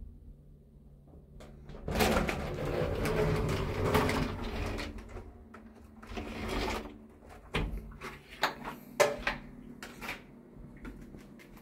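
Folding accordion door of a KTX train toilet cubicle being pulled open: about three seconds of sliding and rattling panels, a shorter slide, then several sharp clicks and knocks as the panels fold and settle. A steady low hum runs underneath.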